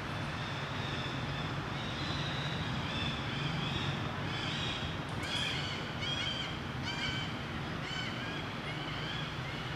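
Short, high-pitched chirping animal calls over a steady outdoor background hiss; the calls come quickly, two or three a second, in the second half.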